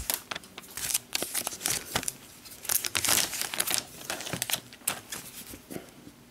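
Thin clear plastic protective film being peeled off the top of an Apple TV box and crinkled in the hands: a run of crackles and rustles that thins out near the end.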